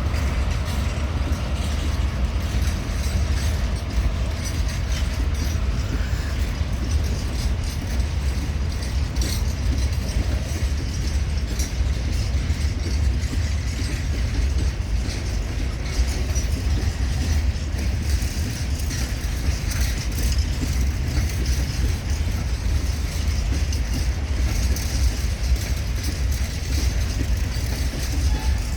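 A freight train hauled by an HŽ Cargo series 2041 diesel locomotive rolls along steadily with a continuous low rumble and scattered clicks. A faint squeal dies away in the first few seconds.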